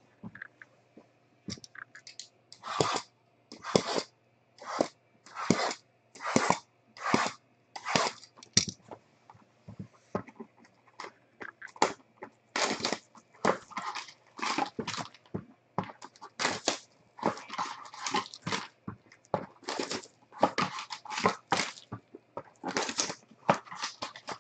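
Plastic shrink wrap being ripped and crinkled off sealed trading-card boxes: a run of short crackling tears about one a second, then denser, more irregular crinkling and handling as a box is opened.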